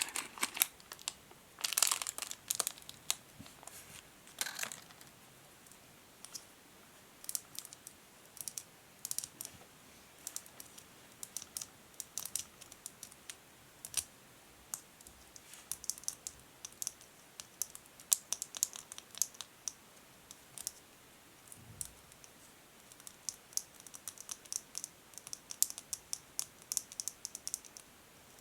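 A tiny plastic bag crinkling for the first few seconds, then natural fingernails tapping on hard plastic in quick, irregular, sharp taps.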